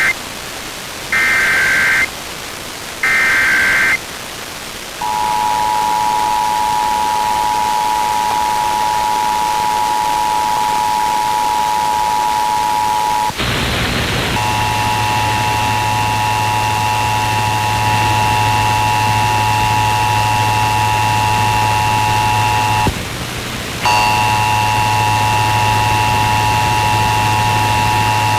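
Emergency Alert System SAME header data bursts: two one-second warbling digital screeches. They are followed by the EAS two-tone attention signal, held steady for about eight seconds. After a short burst of noise, a harsh buzzing chord of several tones over a low hum takes over, dropping out for about a second near the end.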